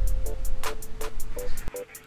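Background music with a steady beat: evenly spaced high ticks over short repeating notes and a steady bass that drops out near the end.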